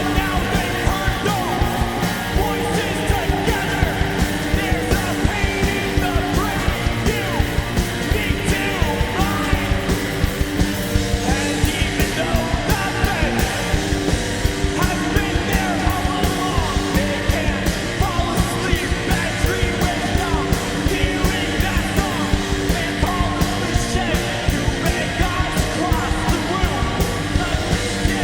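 Punk rock band playing: distorted electric guitars, bass and steady drum hits under yelled singing.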